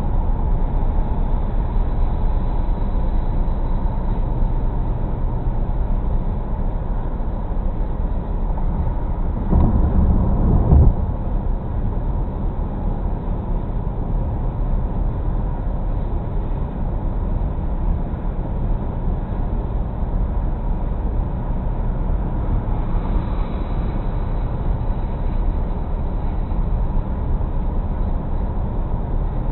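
Steady road and tyre noise with engine hum, heard inside a car's cabin as it cruises at highway speed. A brief louder rumble comes about ten seconds in.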